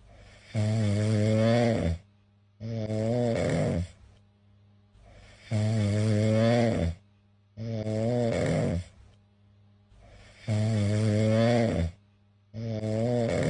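Domestic cat snoring in its sleep, a longer snore followed by a shorter one on each breath cycle, the pair repeating about every five seconds, three times.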